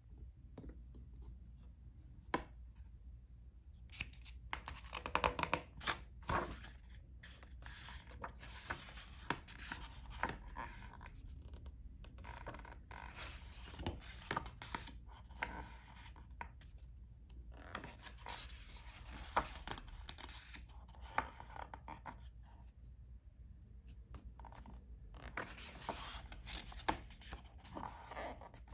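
Pages of a hardcover picture book being opened and turned by hand: paper rustling and sliding in bursts of a few seconds each, with light taps and clicks, separated by quieter pauses.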